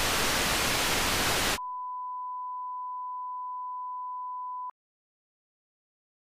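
Analog television static: a loud, even hiss of an untuned set. About a second and a half in, it gives way to a steady single-pitch beep, the test-card tone, which runs for about three seconds and cuts off suddenly with a click.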